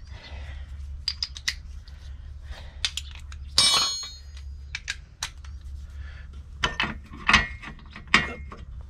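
Steel hand tools clicking and clinking: a socket on a universal-joint (wobble) extension and ratchet being handled and fitted up into a tight space. There is one ringing metallic clink about three and a half seconds in and a few sharper knocks near the end.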